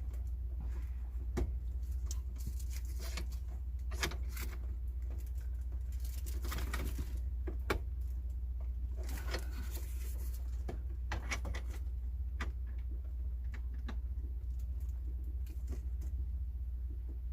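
Intermittent clicks, light rattles and short scrapes of tools and parts being handled during installation work, over a steady low hum.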